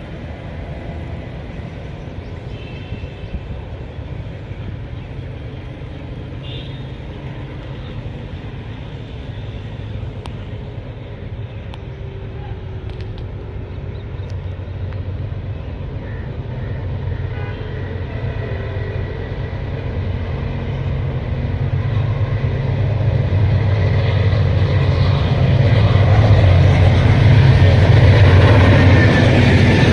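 Approaching diesel-hauled express train: a steady low locomotive engine rumble that grows slowly louder, loudest near the end as the train closes in.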